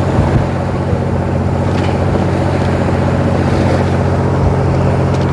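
A fishing boat's engine running steadily, a low even hum with a few faint ticks over it.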